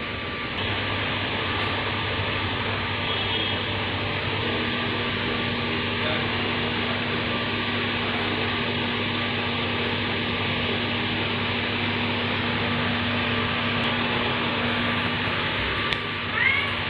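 Steady mechanical whir with a low hum, like an electric fan's motor running in a small room. A short, high, rising sound comes near the end.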